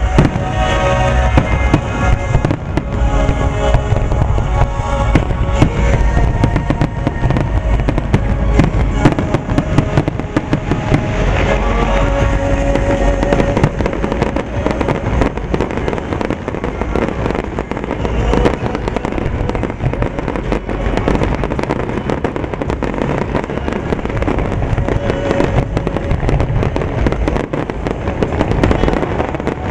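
Aerial firework shells bursting one after another in a dense, continuous barrage, with music playing over them.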